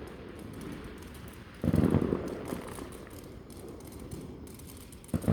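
Fireworks going off, two low booms heard from some way off: one about two seconds in and another near the end, each dying away over about a second.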